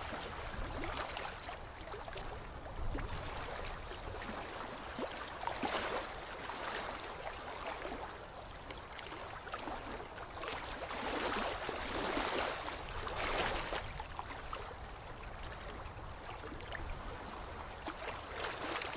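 Flowing, trickling water, swelling louder about six seconds in and again from about eleven to thirteen seconds.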